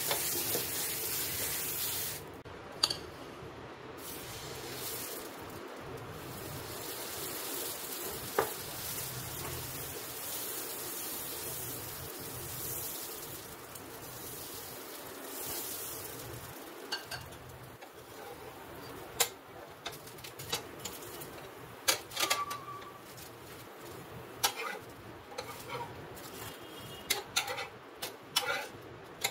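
Dosa cooking on a hot nonstick tawa. A sizzling hiss sounds as a cloth wipes the pan and drops about two seconds in, then a fainter steady sizzle runs while the batter is spread and cooks. In the second half come scattered sharp clicks and scrapes of a ladle and spatula against the pan.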